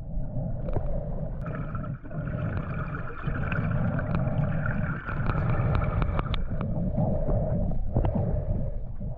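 Water gurgling and sloshing around the camera, with a heavy low rumble and many small sharp clicks.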